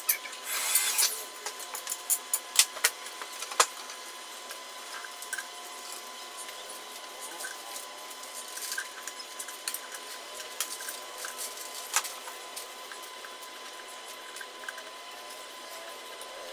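A hand-held electric drill runs in a short burst about half a second in. Then come a few sharp clicks and knocks as a melamine drawer box is handled and fitted onto its slide rails.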